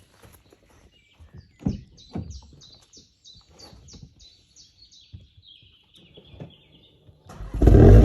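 A small bird sings a run of quick, repeated high chirps, with a couple of soft thumps early on. About seven seconds in, the Golf 8 GTI Clubsport's turbocharged four-cylinder, fitted with an Akrapovic exhaust in Nürburgring mode, fires up suddenly and loudly.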